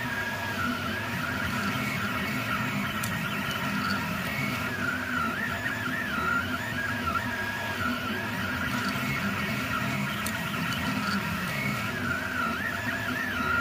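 3D printer printing: its stepper motors give off a wavering whine that keeps sliding up and down in pitch as the print head changes speed and direction, over the steady whir of its cooling fans.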